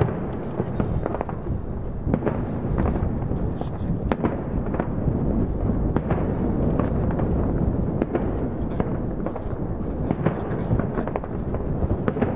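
Aerial fireworks shells bursting in quick succession: a continuous rumble of booms, cut through by many sharp cracks.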